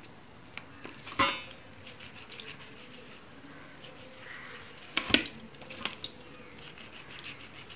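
Dough being kneaded by hand in a stainless steel plate, with a few knocks and clinks on the metal. One knock rings briefly about a second in, and the loudest comes about five seconds in.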